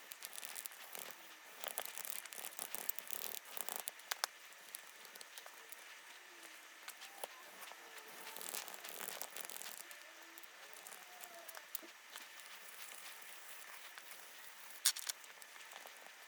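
A clear plastic model part being sanded by hand with a 1000-grit sponge sanding pad: irregular scratchy rubbing strokes, heaviest in the first few seconds and again about eight to ten seconds in, with two sharp clicks near the end.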